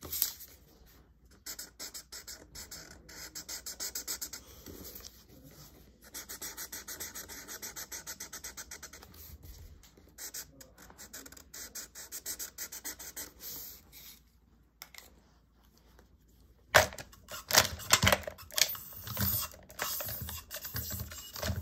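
Sharpie marker scratching on paper in quick back-and-forth colouring strokes, several a second. The scratching stops for a couple of seconds, then louder scuffs and knocks of the paper being handled follow near the end.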